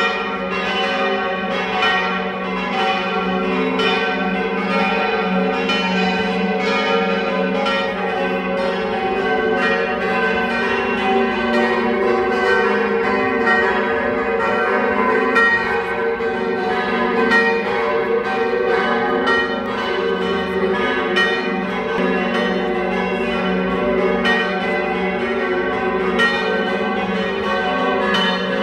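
Church bells pealing: many strokes coming in quick succession and overlapping into one continuous ringing.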